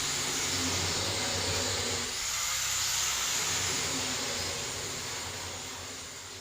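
Steady factory machinery noise, a dense hiss over a low hum, fading away near the end.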